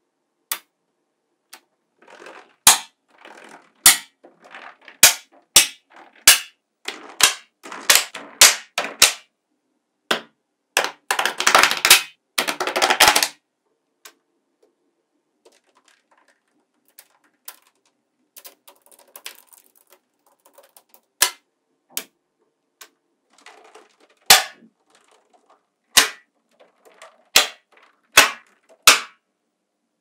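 Small metal magnetic balls snapping together in sharp clicks as strips and chains of balls are laid onto a slab of balls, with short quiet gaps between snaps. A little before halfway there is a dense run of rapid clattering as a row of balls clacks into place.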